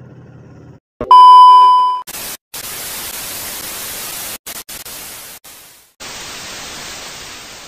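A loud steady electronic beep lasting about a second, followed by several bursts of hiss like TV static that start and stop abruptly.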